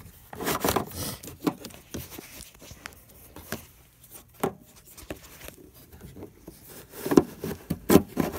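Hands working the under-hood retractable work light and its cord back into the housing: rubbing and scraping with irregular small clicks, and two sharper knocks near the end.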